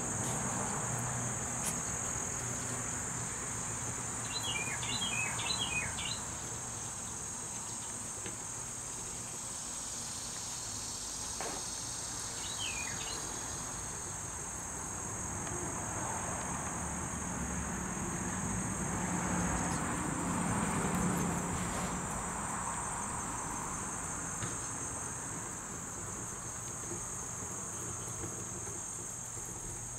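Steady high-pitched insect chorus with no break. Two short flurries of quick chirps come over it, a few seconds in and again a little before the middle.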